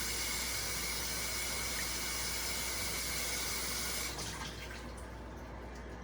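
Kitchen tap running steadily as seafood is rinsed under it, then shut off about four seconds in.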